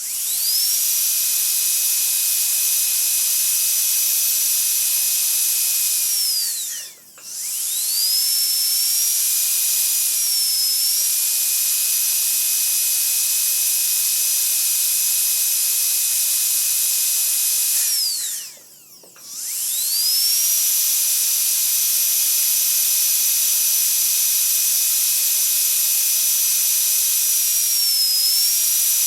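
Dentist's drill whining at a high steady pitch over a hiss. It spins down and stops twice, at about a quarter and two-thirds of the way through, each time spinning straight back up to full speed. Its pitch dips briefly twice while it runs.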